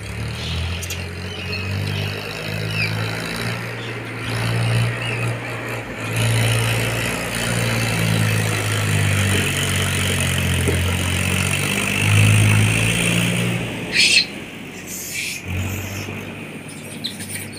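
A motor vehicle's engine running, a low drone that shifts in pitch, with a high hiss over it. A monkey squeals briefly about 14 seconds in.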